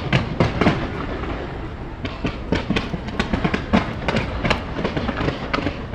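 Fireworks going off in rapid succession: many sharp bangs and crackles, several a second and irregular, over a steady low rumble.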